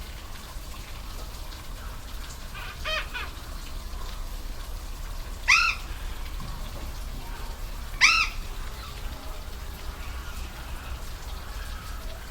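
Waterfall rushing steadily, with a bird giving short, harsh, arched squawks: a faint one about three seconds in, then two loud ones about two and a half seconds apart.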